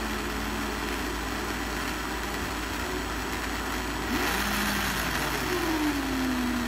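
Small geared DC motor running, driving a cardboard RC front axle through a bamboo-chopstick driveshaft with universal joints. The hum is steady. About four seconds in, a louder rush comes in, and near the end the hum slides lower in pitch.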